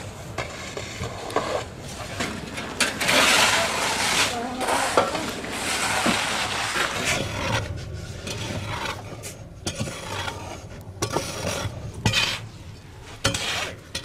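Shovels scraping and scooping through heaps of loose volcanic ash in repeated, irregular strokes, with a few sharp knocks.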